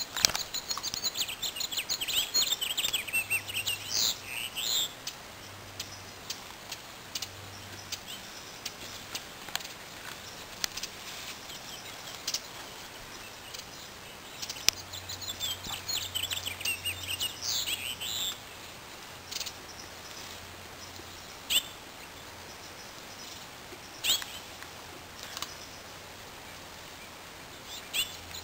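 Birds singing and chirping in two spells, over a steady outdoor hiss, with a few sharp clicks scattered through.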